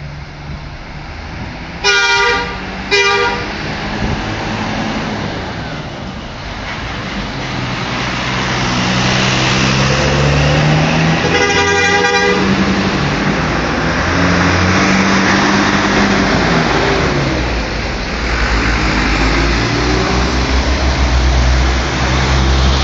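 Bus horn giving two short blasts about two seconds in, then a longer blast about halfway through, as a greeting. Under it the bus's diesel engine pulls away, rising in pitch and falling back at gear changes.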